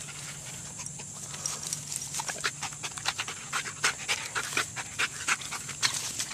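A dog panting in short quick breaths while it wriggles and rolls on its back in grass, with light scuffling from the grass.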